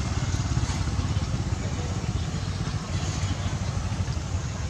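A small engine idling steadily off-camera, a continuous low rumble.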